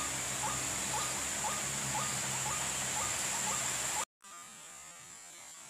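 Short hooked call notes repeated two to three times a second, the rhythmic call of a white-breasted waterhen, over a steady high-pitched whine; it all cuts off abruptly about four seconds in.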